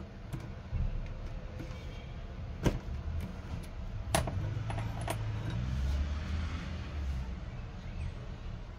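Metal-on-metal clinks as a lathe chuck key is worked and pulled from the chuck and the steel bar is handled. There is one sharp clink about two and a half seconds in, the loudest sound, then another about a second and a half later and a few lighter clicks, over low handling rumble.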